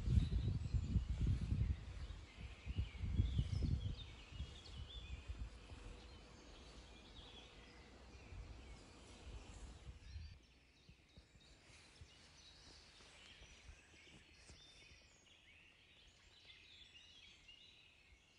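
Wind buffeting the microphone in gusts, strongest over the first few seconds, with birds singing throughout. After about ten seconds the wind drops away and only faint birdsong is left.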